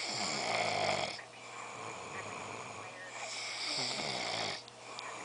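A drunk person snoring, two long snores about three seconds apart, each with a low rattle that falls in pitch.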